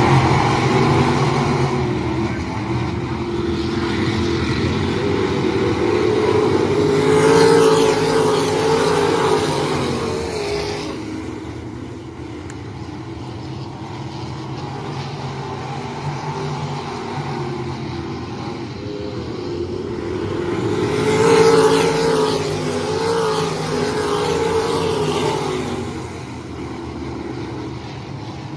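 Field of dirt-track race cars running a heat race, their engines rising and falling in pitch. The pack gets loudest as it passes twice, about 14 seconds apart: once about a quarter of the way in and again about three quarters of the way in.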